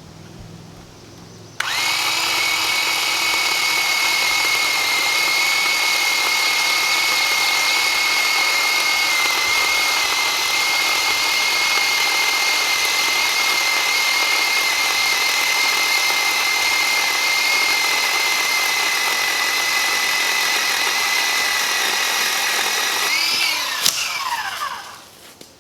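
Bauer 20V cordless pole saw's electric motor and chain running at a steady high whine, starting suddenly about a second and a half in. Near the end it winds down, the pitch falling, and stops.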